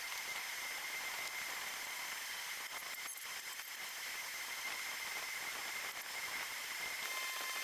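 Faint steady hiss with a thin, constant high whine: workshop room tone, with no distinct event.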